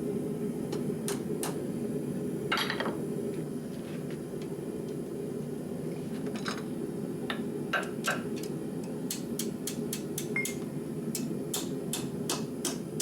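Hammer blows on hot rebar, folding it in half, over the steady noise of a running forge. A few separate strikes come early, then a quicker run of blows, about two a second, near the end.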